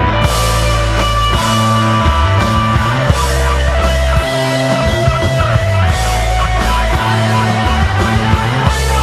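Instrumental desert rock played live by an electric guitar, bass and drum kit trio: held, ringing guitar notes over a bass line that moves every second or so, with cymbals washing over the drums.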